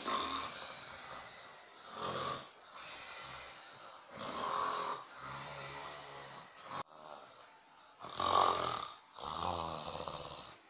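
Loud snoring: about five snores a couple of seconds apart, with quieter, droning snores between them.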